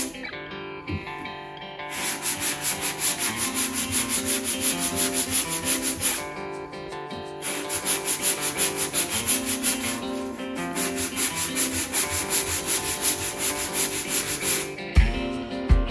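Hand block sanding of body filler on a car's quarter panel: quick back-and-forth rubbing strokes, about three or four a second, stopping briefly a few times. A couple of low thumps near the end.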